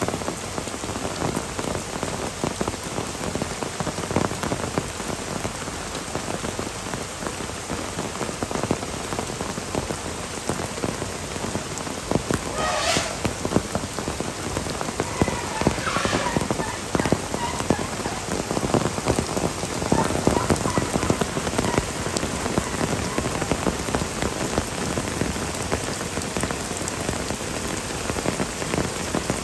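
Heavy downpour: steady rain with dense patter of drops hitting surfaces. A few brief higher-pitched sounds show through the rain near the middle.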